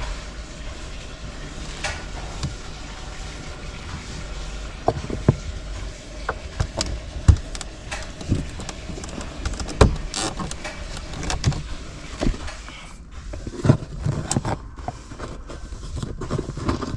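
Scattered clicks and knocks of PVC drain pipe, fittings and a cement can being handled and fitted, over a steady low rumble that drops away about 13 seconds in.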